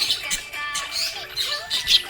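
Budgerigar chirping in quick, high twitters over background music with a held, stepping melody.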